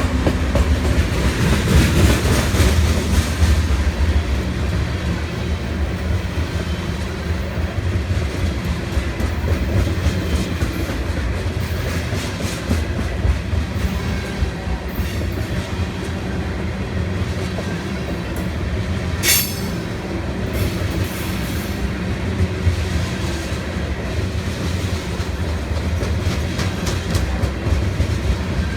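Loaded ethanol tank train rolling past at trackside: a steady heavy rumble with the wheels clicking over rail joints, and one sharp high-pitched sound about two-thirds of the way through.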